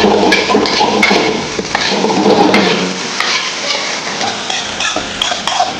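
Metal spatula scraping and tapping against a wok as fried rice is stir-fried, with a light sizzle from the pan; many quick, irregular scrapes.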